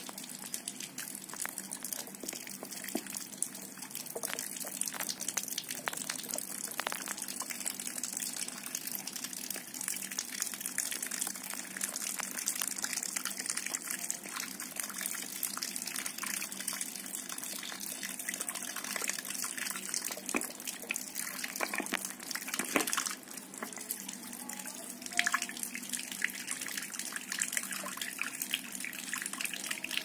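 Running water from a tap pouring over a hand-held block of ice and splashing onto a pebbled concrete floor, thawing the ice, with a few sharper knocks.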